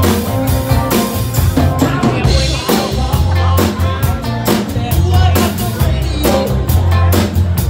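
A live band playing a rock song: drum kit keeping a steady beat over electric bass, with acoustic guitar and fiddle.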